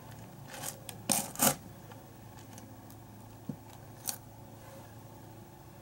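A few short, faint scratchy rubs of a makeup brush, three within the first second and a half and one more about four seconds in, over a steady low hum.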